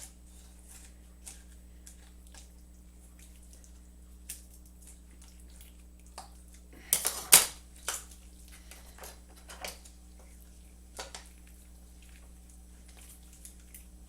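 Chicken shears snipping and crunching through a raw chicken's rib bones to cut the breast away from the backbone: scattered sharp clicks and crunches, with a loud cluster of cuts about seven seconds in.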